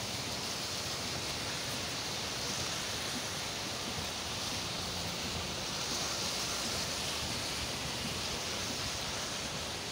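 A flooded river in spate rushing steadily, a constant, even wash of water noise from the high, muddy water.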